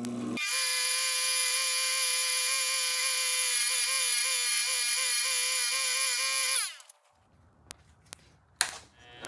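Electric motor of a small power tool running with a high steady whine, its pitch dipping slightly now and then as if under load. Near the end it is switched off and winds down with a falling pitch, followed by a few sharp clicks.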